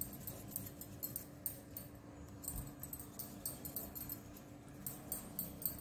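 Faint handling sounds of soft dough being pinched off and rolled into balls by hand: small irregular high clicks and ticks over a steady low hum.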